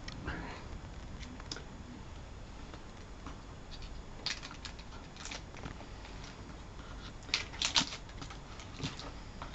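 Packaging on rolled posters being cut and pried open at the ends: scattered clicks and crinkly scrapes, busiest about four to five seconds in and again around seven and a half seconds.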